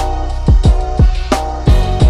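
Background music with a drum beat: deep kick-drum hits that drop in pitch and sharp high hits over held notes.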